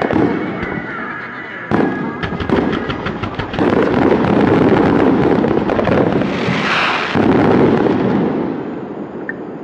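A rapid barrage of aerial firework shells bursting. About two seconds in comes a quick run of separate bangs, then it merges into a dense, continuous rumble of bursts that fades near the end.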